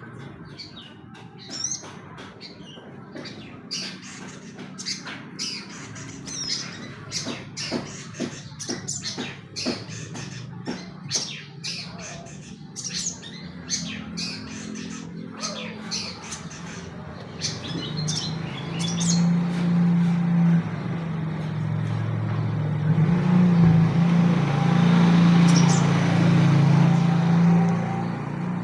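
Long-tailed shrike giving rapid, sharp chirps and harsh squawking calls, a pancingan (lure) song meant to provoke other songbirds into singing. About halfway through, a low drone comes in and grows louder, covering the calls near the end.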